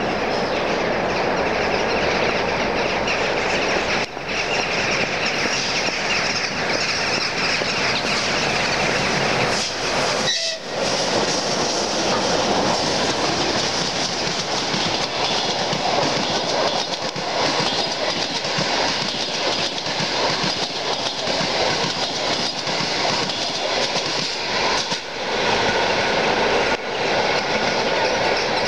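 Passenger train behind a ChS7 electric locomotive running past close by: a continuous loud rolling rumble, with the wheels clacking over the rail joints.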